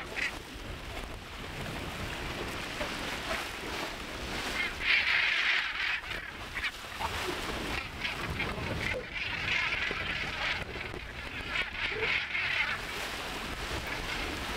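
Northern gannets calling as they jostle and splash at the sea surface, over the wash of choppy water.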